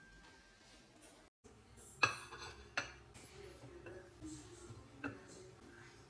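Dishes and cutlery being handled, with sharp clinks about two seconds in, again a moment later and near the end, among quieter knocks. A ringing tone fades out in the first second.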